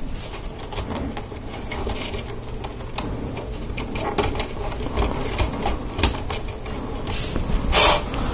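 A flexible plastic Lego Technic hose being pushed and pulled through pin-hole connectors on a plastic Technic frame: a steady rustle of plastic rubbing on plastic, with scattered small clicks and taps of the pieces.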